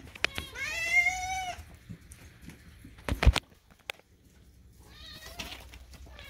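A pet cat meowing to be fed: one loud meow about half a second in that dips and rises in pitch, then a fainter meow near the end. A brief clatter comes about three seconds in.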